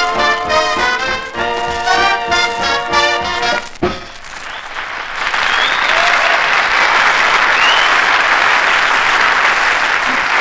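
A swing band with trumpets and trombones plays up to a final hit about four seconds in, followed by a studio audience applauding.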